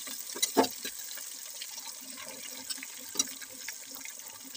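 Hot ghee sizzling and bubbling around a mass of mashed boiled chana dal in a kadhai: a steady frying hiss, with a few sharp knocks and scrapes of a spatula against the pan.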